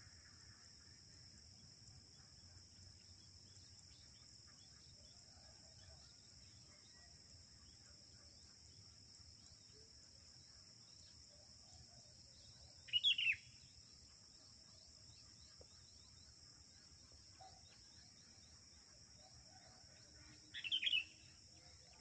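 Sooty-headed bulbul (kutilang) giving two short, bright calls about eight seconds apart, the female's call that draws in males.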